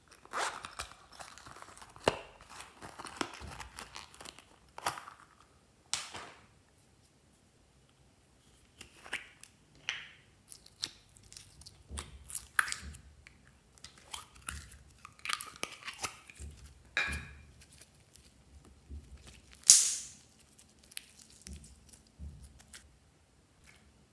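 Close-up handling sounds: a zipper rasping open on a soft silicone pouch in the first few seconds, then scattered clicks, taps and crinkles as small plastic slime containers are opened and emptied, with one sharp, loud click near the end.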